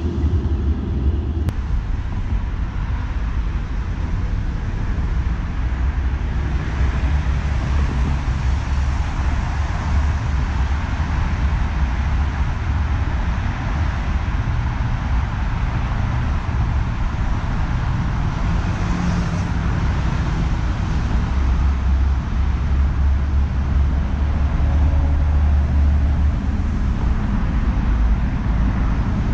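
Steady city road-traffic noise with a deep, uneven rumble underneath.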